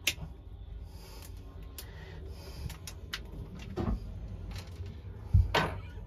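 Wires being pulled apart and handled at a bilge pump, giving scattered short clicks and knocks of wire and plastic, the loudest near the end, over a low steady hum.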